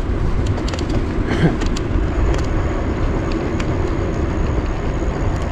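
Steady wind buffeting the microphone of a handlebar-mounted camera, mixed with tyre noise, as a bicycle rolls along a paved path.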